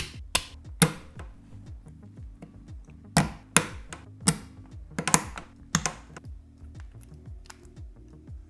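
3D-printed plastic geared-cube corner pieces clicking and knocking as they are fitted onto the printed center, in irregular sharp clicks, the loudest ones bunched between about three and six seconds in. Quiet background music runs underneath.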